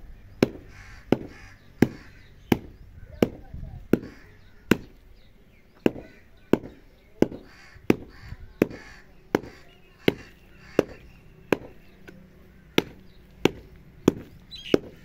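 A stick pounding a heap of dry clay soil to break up the clods, a sharp thud about every 0.7 s, some twenty strikes with two short pauses. The soil is partly damp, so it is not crushing down fine.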